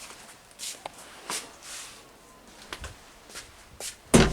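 Scattered soft rustles and light clicks of movement, then one loud thump about four seconds in.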